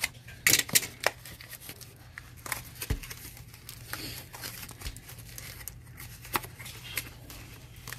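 Small cardboard mailer box being handled and pulled open by hand: a few sharp clicks and knocks in the first second, then scattered crinkling, scraping and tearing of cardboard.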